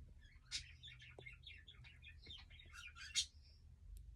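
Budgies chirping and chattering softly, a string of short high chirps with two louder calls, one near the start and one about three seconds in.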